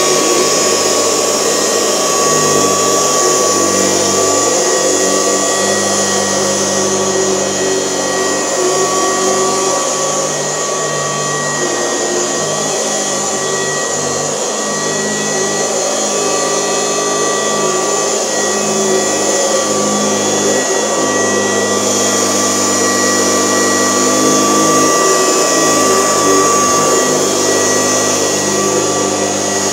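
1972 Kirby Classic 1CR vacuum cleaner, set up in portable mode with a hose, running steadily with a high motor whine while it vacuums a mattress. The lower part of the sound and the loudness shift a little as the tool works across the mattress.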